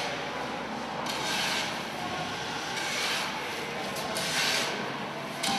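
Steel shovel blade scraping and digging into a pile of sand, several scoops about a second and a half apart, with a sharper scrape near the end, over the steady hum of a large building.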